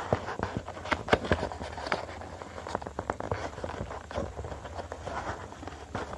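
A sheet of A5 copy paper being folded and creased by hand against a tabletop: irregular taps, crinkles and rubbing as fingers press the folds flat.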